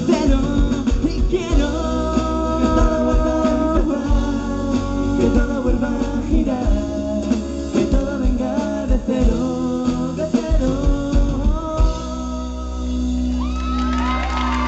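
Live pop-rock band playing with singing, guitar and a strong bass. Near the end it settles onto a steady held final chord.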